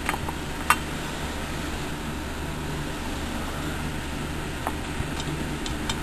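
A steady low mechanical hum with a few light clicks and taps over it, the sharpest a little under a second in and several smaller ones near the end.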